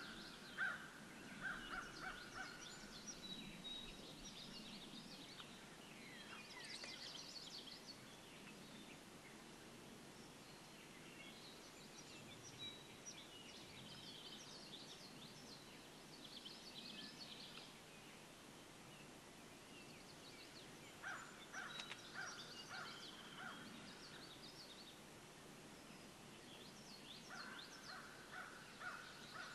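Faint songbirds chirping and twittering throughout, with short runs of turkey yelps, a few notes each, near the start, about two-thirds of the way through and again near the end.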